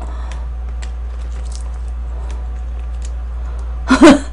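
Small clicks and soft squishes of sauced fried chicken being pulled apart by hand and eaten, over a steady low hum. About four seconds in comes a brief, loud vocal sound.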